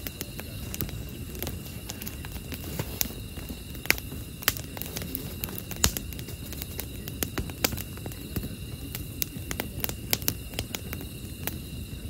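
Wood campfire of stacked split logs burning: a steady low rush of flame with irregular sharp crackles and pops from the burning wood, a few of them louder.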